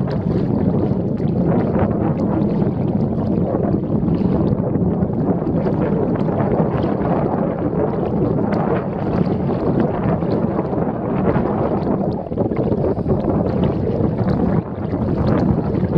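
Steady wind noise on the microphone over moving river water around a kayak, with many short irregular splashes.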